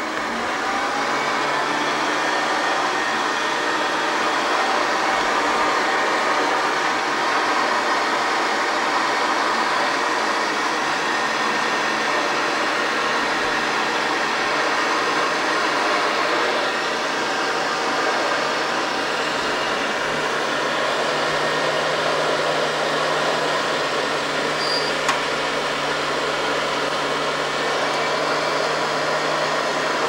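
Upright vacuum cleaner running steadily as it is pushed over carpet, a constant motor whirr with a low hum. There is a single brief click about 25 seconds in.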